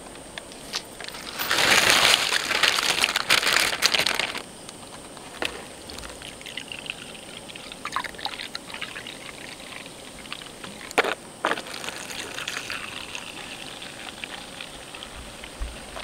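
A soft drink being poured from a bottle into cups: a loud splashing pour starting about one and a half seconds in and lasting a couple of seconds, then quieter trickles and a few sharp clicks.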